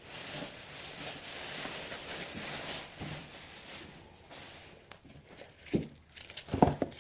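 Rustling of packaging as items are handled, then a few light clicks and two short knocks near the end.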